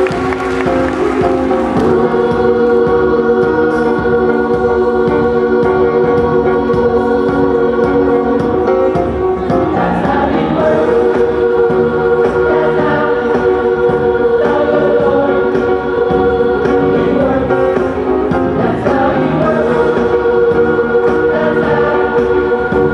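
Recorded music with choir-like singing over a steady beat, playing without a break.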